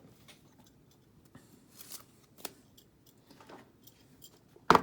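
Pokémon trading cards and their tins and boxes being handled: soft rustling and light clicks, then one sharp knock near the end.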